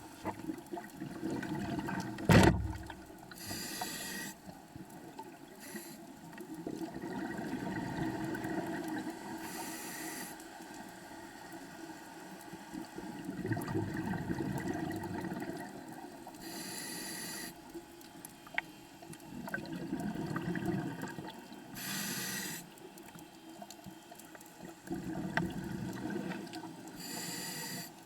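Scuba diver breathing underwater through a regulator: a hissing inhale about every five to six seconds, with rumbling bubble exhales between them. A single sharp thump comes about two seconds in.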